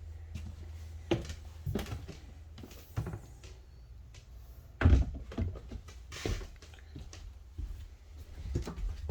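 A few scattered knocks and thunks of RV wardrobe doors being handled, opened and shut, the loudest about five seconds in, over a low steady hum.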